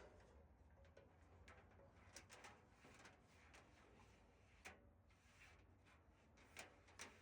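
Near silence, with a few faint, scattered clicks and light knocks.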